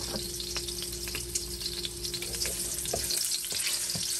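Garlic-confit oil sizzling and crackling in a hot wok, with many small pops. Near the end a utensil stirs through the oil.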